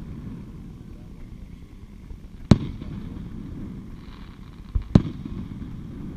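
Distant aerial fireworks shells bursting: two sharp booms about two and a half seconds apart, the second with a smaller pop just before it, each trailed by a short echo over a steady low background noise.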